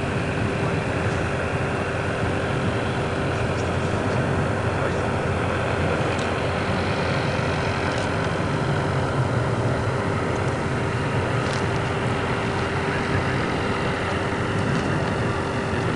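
Boeing 707-3L6C's four Pratt & Whitney JT3D turbofans on final approach with the gear down: a steady jet roar with a constant hum running through it, a classic older-engine 707 sound.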